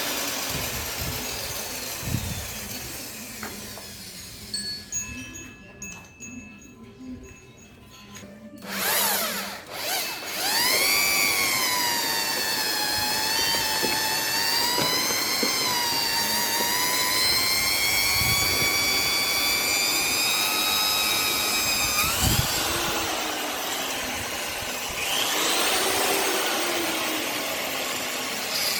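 A power tool's motor whining, its pitch wavering up and down. It is quieter for a few seconds near the start, then runs steadily for about twelve seconds.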